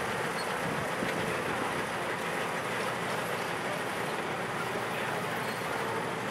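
Rio Grande Southern Goose No. 1 rail motorcar rolling slowly along the track under its own power: a steady, even running noise with no distinct knocks or blasts.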